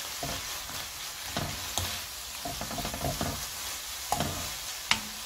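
Shishito peppers and dried anchovies sizzling in a nonstick frying pan while a spatula stirs and scrapes through them, with two sharp clicks of the spatula against the pan near the end.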